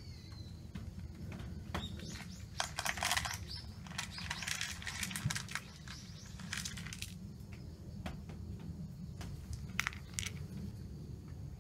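Dry cat food rattling and rustling into a bowl in dense crackling bursts for several seconds. A few sharp clicks follow near the end as the bowl is set down.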